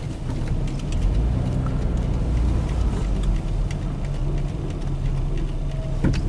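Minivan driving: a steady low engine and road rumble, with faint scattered clicks.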